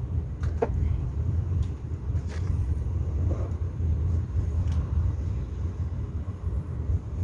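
Steady low rumble, like a motor running nearby, with a few light clicks and taps of small parts being handled.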